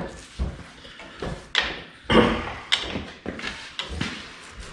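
Irregular metal knocks, clunks and short scrapes as the Honda CB900C engine is worked into its frame, about seven or eight in a few seconds, the loudest a little past two seconds in.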